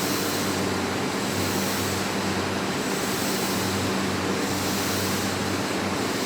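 Steady interior noise of a Tokyu 3020 series electric commuter train: an even hum with a constant low drone under it.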